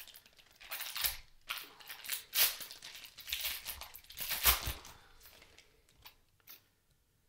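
Foil wrapper of a Panini Prizm basketball card pack crinkling and tearing as it is ripped open by hand, in a run of uneven rustling bursts that die away after about five seconds.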